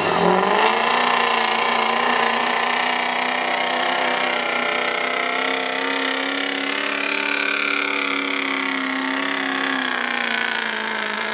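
Turbocharged diesel engine of a Ford Super Duty pickup running at full throttle under heavy load while pulling a weight sled. The pitch climbs in the first second, then holds nearly steady as the truck pulls.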